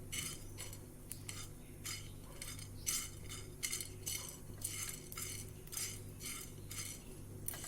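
A spoon stirring whole spices (peppercorns, cloves and cinnamon) as they dry-roast in a pan, with short scrapes and clinks about once or twice a second.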